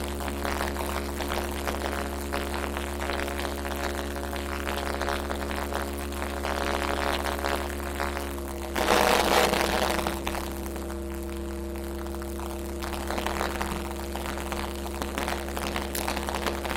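Harsh noise music: a steady electronic drone of several held tones under a dense crackling haze, with a loud burst of noise about nine seconds in.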